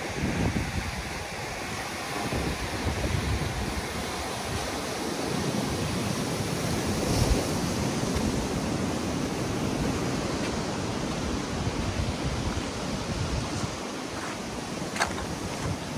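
Ocean surf breaking and washing onto a rocky shore, a continuous rushing of waves, with wind gusting on the microphone. A short click comes near the end.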